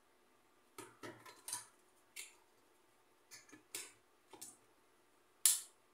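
Screwdriver tightening screws inside an electric rice cooker's base: scattered short metallic clicks and scrapes, the loudest just before the end.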